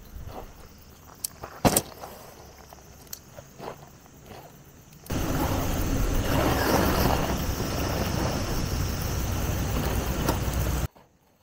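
Scattered footsteps and rustling of tent gear on dry grass, with a sharp knock about two seconds in. About five seconds in, a loud, steady rush of wind buffeting the microphone takes over, then cuts off abruptly near the end.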